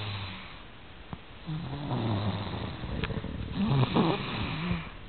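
Snoring: two long snoring breaths about two seconds apart, each with a low steady hum.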